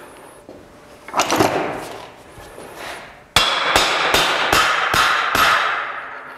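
Hammer blows on the head of a clutch puller threaded into a Polaris Ranger's CVT primary clutch: about seven sharp metal strikes, roughly two and a half a second, each ringing into the next, to shock loose a primary clutch that is stuck on its shaft. A shorter burst of noise comes about a second in.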